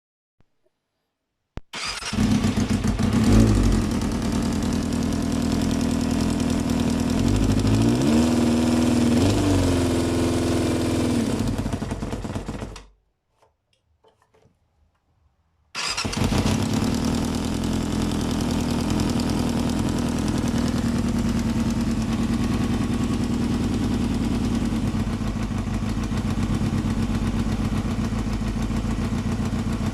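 1995 Yamaha FZR600R's inline-four engine starting about two seconds in, blipped and then revved up and down, shut off, restarted a few seconds later and idling steadily. Its running carries a ticking noise that the owner suspects comes from the timing chain or its tensioner.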